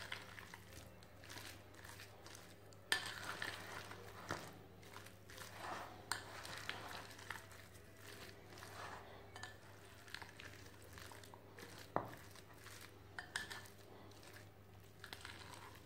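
Metal spoon stirring a mashed boiled-egg and mayonnaise mixture in a ceramic bowl, with faint, irregular clinks and scrapes against the bowl over a low steady hum.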